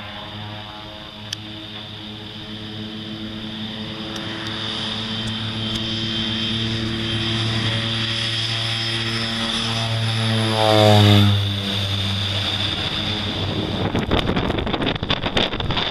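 de Havilland Canada Twin Otter's two PT6A turboprops at takeoff power: a steady propeller drone that grows louder as the plane rolls toward and past, loudest about eleven seconds in, then drops in pitch as it goes by. Wind buffets the microphone near the end.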